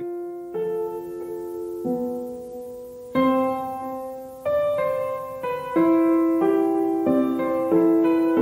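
Background piano music: slow sustained chords that change about once a second.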